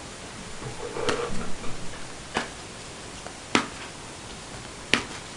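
Four sharp, short taps about a second and a quarter apart: playing cards being laid down on a table.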